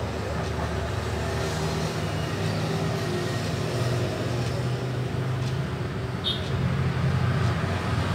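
Steady low mechanical hum and rumble, a little louder in the second half, with a brief faint tick about six seconds in.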